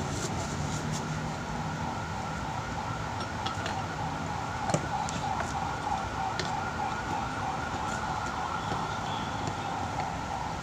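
Light clicks and taps as the metal and plastic parts of an electric fan motor are handled and fitted back together, over a steady background tone.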